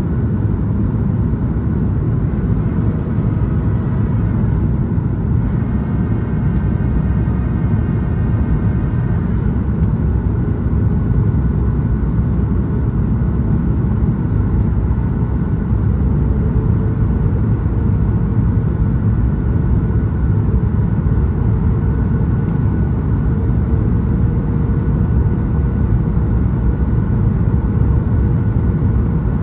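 Steady cabin roar inside a Boeing 737-8 MAX on final approach: CFM LEAP-1B engine and airflow noise, mostly low rumble. A faint whine rises over it for a few seconds early in the stretch, and a faint steady tone joins about halfway through.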